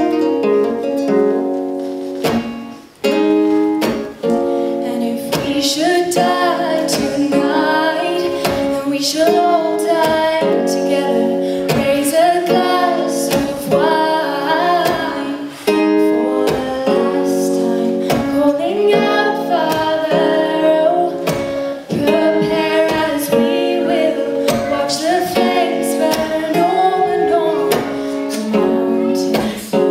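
A woman singing a slow ballad melody, accompanied by a strummed acoustic guitar.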